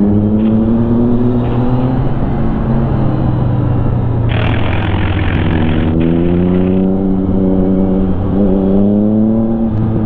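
Yamaha XSR900 inline-three engine accelerating, its pitch climbing twice with a drop in between, as it pulls through the gears. A gust of wind rushes across the helmet microphone for a couple of seconds in the middle.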